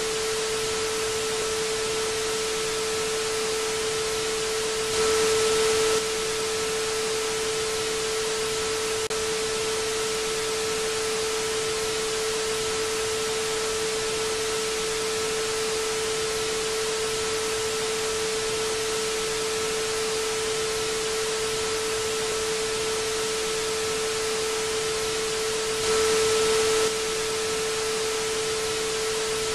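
Television static: a steady, even white-noise hiss with a steady low tone running beneath it. The hiss swells slightly louder for about a second twice, about five seconds in and again near the end.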